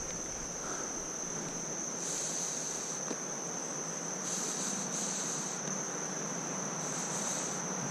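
Insects trilling in one high, steady, unbroken tone, over a soft steady rush of flowing creek water.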